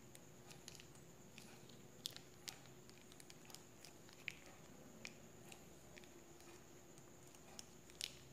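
Near-quiet room tone with a faint steady hum, broken by a handful of small sharp clicks and crinkles as a plastic sauce sachet is handled and squeezed.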